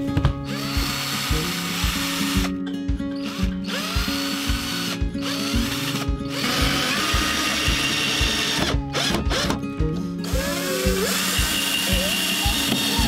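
Cordless drill driver driving screws into wooden planter boards in several runs of about two seconds each, with short pauses between them. Its pitch rises and falls as the trigger is worked. Background music with a steady beat plays underneath.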